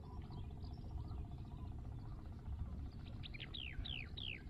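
A bird calling in the last second and a half: a quick run of about six whistled notes, each falling in pitch, over a steady low rumble.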